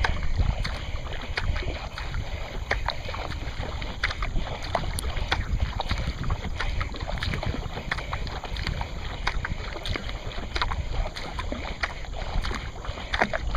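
Water splashing and lapping along a racing kayak's hull as it is paddled, in many small irregular ticks and spatters, over a low wind rumble on the microphone.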